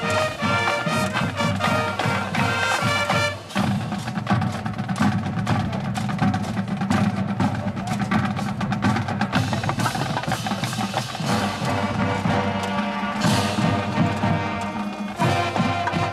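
High school marching band playing: sustained brass chords for about three seconds, then a percussion-driven passage of drum strikes, with the full band's chords coming back in near the end.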